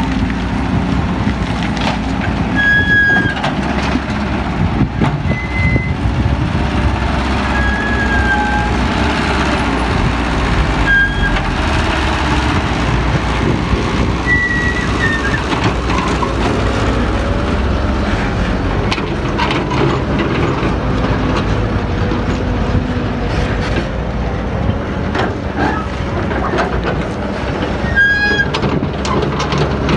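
Heavy diesel engine of a working excavator running steadily, with occasional knocks and a few brief high-pitched squeaks.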